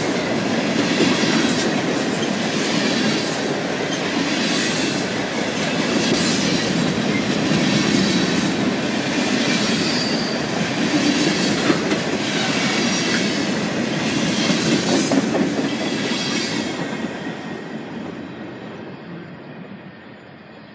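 Freight train of open-top hopper cars rolling past close by: a steady rumble of steel wheels, with repeated clacking over the rail joints and a couple of brief high wheel squeals. The sound fades away over the last few seconds as the end of the train passes.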